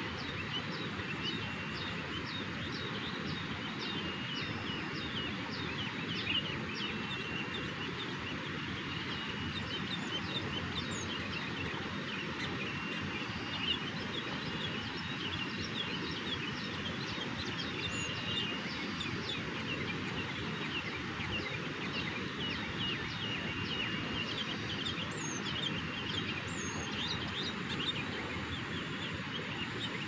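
Sooty-headed bulbuls chirping over and over in quick, short notes, over a steady background hiss.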